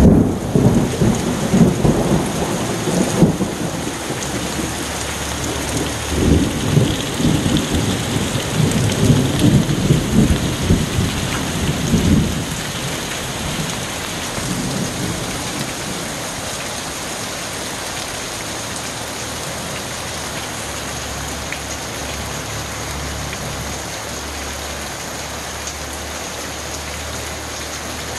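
Heavy rain pouring through trees onto a yard, with thunder rumbling in rolling surges for about the first twelve seconds before it dies away, leaving the steady hiss of rain.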